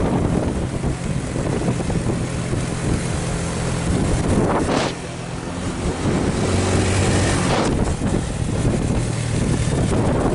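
Heavy truck engines running under strain on a steep road, with wind buffeting the microphone. A brief swoosh comes about halfway through, and another near three-quarters of the way.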